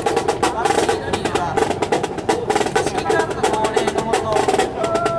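Marching band music with snare drums keeping a quick, steady beat under pitched melody lines.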